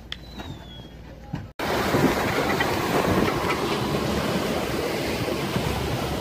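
A quiet first second and a half with a faint high whistle, then a loud, steady rush of a dive boat under way on open sea: motor, water and wind noise together.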